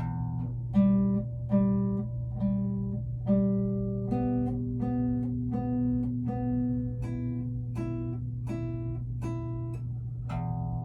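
Guitar playing a slow beginner's exercise of single plucked notes, roughly one every three-quarters of a second, each ringing and fading before the next, over a steady low hum.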